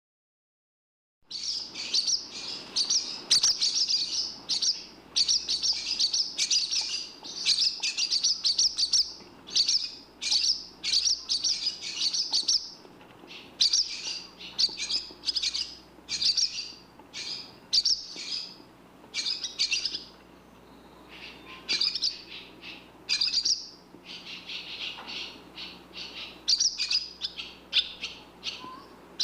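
Barn swallow twittering: fast runs of high chirps in clusters a second or two long with short breaks between, starting about a second in.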